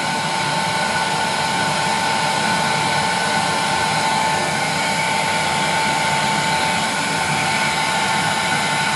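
A 1200-watt heat gun running on its high setting: a steady blowing rush with a constant whine. It is blowing hot air on the bonded face of a CRT to soften the PVA layer so the safety lens can separate.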